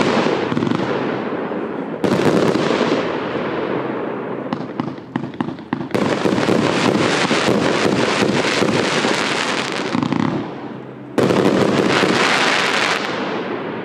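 Triplex TXB706 Powder Play 130-shot fireworks cake (20–30 mm shots) firing: volleys of shells bursting into crackling. Fresh volleys hit about two seconds in, six seconds in and near eleven seconds, each dying away in crackle.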